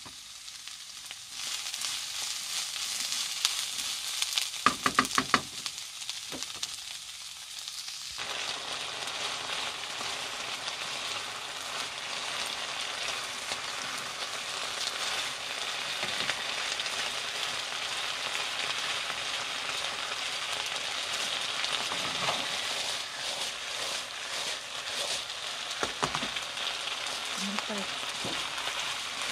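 Strips of pork and green pepper sizzling in a foil-lined frying pan, stirred with a wooden spatula. A few sharp knocks about five seconds in, then steady sizzling.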